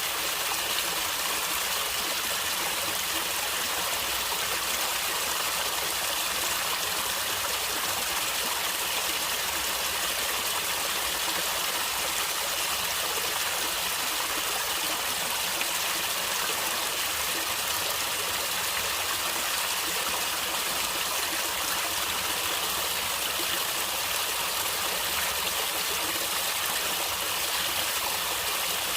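Stream water running and gurgling steadily, an even rushing splash with no breaks.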